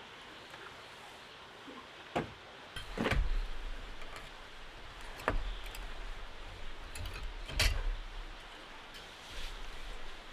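Steady rain hiss, broken by four sharp knocks and handling noises, with a low rumble starting about three seconds in.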